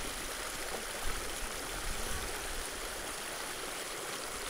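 Creek water running steadily, with a brief low bump about a second in.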